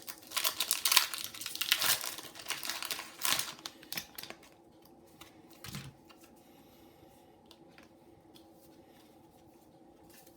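Foil wrapper of a Pokémon TCG booster pack being torn open and crinkled for about four seconds, then a few faint rustles and taps as the pack is handled.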